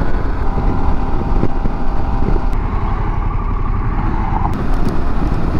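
Wind rush and engine noise from a 2021 Harley-Davidson Pan America's V-twin riding at highway speed, picked up by a handlebar-mounted camera, with a faint steady whine.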